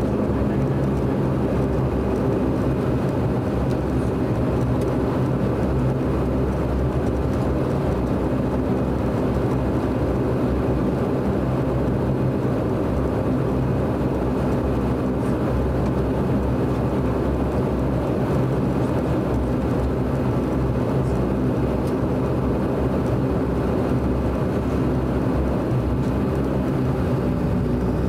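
DHC-8 Q400's Pratt & Whitney PW150A turboprop engines and propellers at low power while taxiing onto the runway, heard inside the cabin: a steady drone of several even tones over a low rumble.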